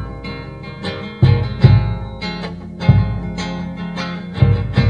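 Background music of plucked guitar notes over a deep bass, each note struck and left to ring.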